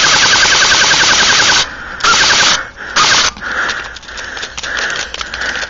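Airsoft AK-style rifle firing on full auto with a rapid, even ticking. A long burst stops about one and a half seconds in, then two short bursts follow about a second apart.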